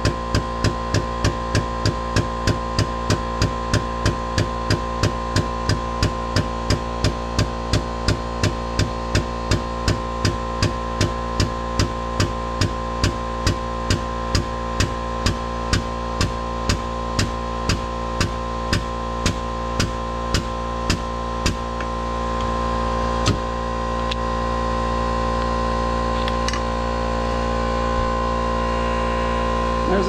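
Powered hydraulic crimper running as it crimps a lug onto a battery cable: a steady hum with a regular ticking about two and a half times a second. The ticking stops about two-thirds of the way through while the hum carries on slightly louder, with a single click a little later.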